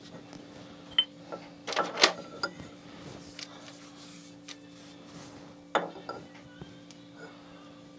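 Metal clinks and knocks as a machined metal workpiece is handled on a milling machine's steel table, with a sharp knock about two seconds in and another near six seconds as it is set back down. A steady low hum runs underneath.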